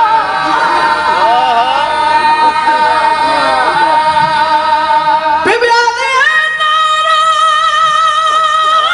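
A young man's high voice singing a mournful recitation (a majlis lament) into a microphone, the melody wavering for the first few seconds; about five and a half seconds in, it rises and holds one long high note with a slight vibrato.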